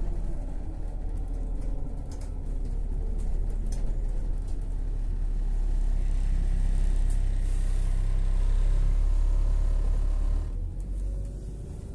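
LiAZ 5292 low-floor city bus running, heard from inside the passenger cabin: a steady engine and road rumble that builds from about halfway through and drops off suddenly near the end.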